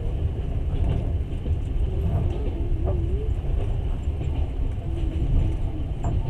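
Passenger train running, heard from inside the carriage: a steady, heavy low rumble of wheels and running gear, with a faint wavering whine about halfway through.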